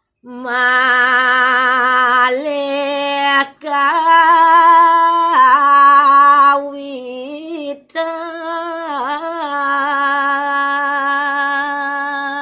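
A woman singing Balinese pupuh Ginada unaccompanied: slow, drawn-out notes with a wavering vibrato and gliding ornaments. She breaks briefly for breath about 3.5 s and 8 s in.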